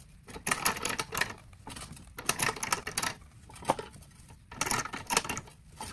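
Irregular clicking, knocking and rattling in several short bursts as a dirt bike's gearbox case is jostled by hand to work it loose from the motor.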